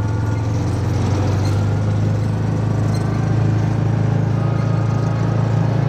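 A vehicle's engine running steadily: a constant low hum that doesn't change.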